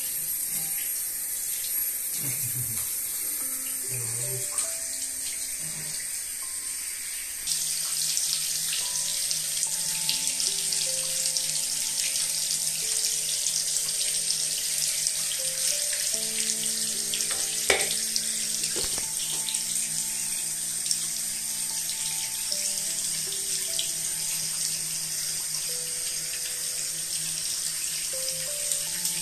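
Water spraying from a handheld shower head onto a tiled shower floor, a steady hiss that gets louder about seven seconds in. Soft background music of slow held notes plays under it, with a couple of small knocks past the middle.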